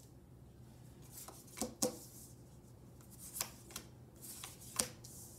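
Tarot cards being dealt from the deck and laid down on a cloth-covered table: a series of light card snaps and taps, about seven in all, the sharpest near two seconds in and near the end.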